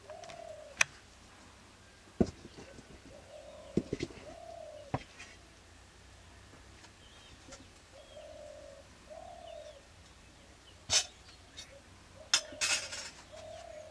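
A dove cooing in short low phrases, repeated several times, while metal cooking pots and steel bowls clank sharply as they are picked up and set down on the floor.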